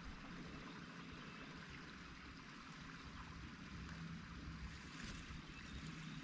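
Faint, steady outdoor ambience on a boat on calm water: a low rumble with a light hiss and no distinct events.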